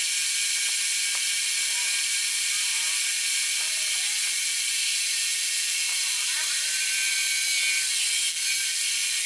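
Milling machine running a homemade fly cutter in a facing cut across a metal block: a steady, high-pitched mechanical hiss and whir.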